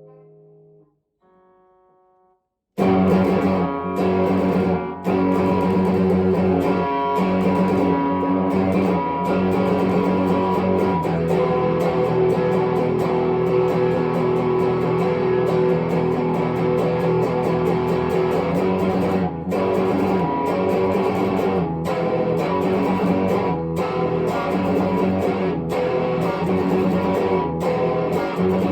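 Epiphone 1959 Les Paul Standard electric guitar. A note fades out and a short quiet phrase follows. About three seconds in, the guitar comes in loud with dense strummed chords that carry on steadily.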